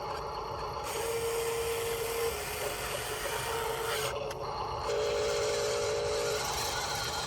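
Small electric motors of radio-controlled construction models whining in three short stretches over a steady gritty rubbing noise.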